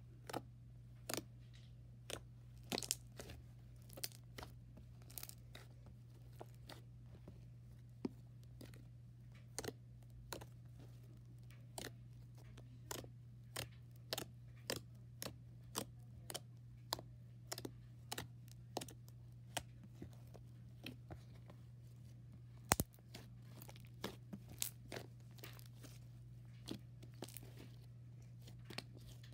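Pale blue slime squeezed and pressed by hand, giving off irregular sharp little pops and clicks, about one or two a second, with one louder pop late on, over a steady low hum.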